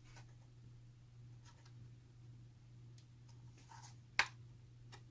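Quiet handling sounds of a graphics card being turned over in the hands: light scrapes and rubs against its shroud, with one sharp click about four seconds in, over a steady low hum.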